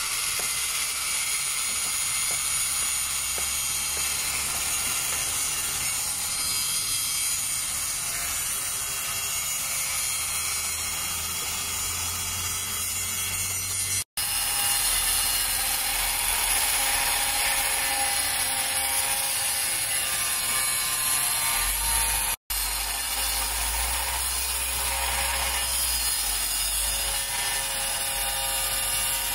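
Hand-held angle grinder with a flap disc running steadily under load, grinding a steel machete blade made from a broken chainsaw blade. The sound breaks off for an instant twice.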